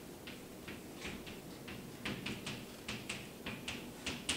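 Chalk tapping and scratching on a blackboard as it is written on: a quick, irregular series of short, sharp clicks.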